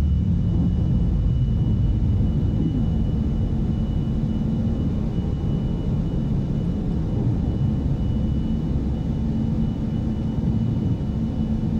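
Steady cockpit rumble of a KC-135 tanker's four jet engines and airflow in the climb just after takeoff, with a thin steady high tone over it.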